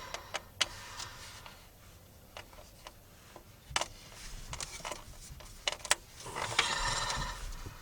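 Scattered light clicks and taps of a small socket and screw against a plastic dash switch housing as the retaining screw is driven back in, with a brief rustling scrape near the end.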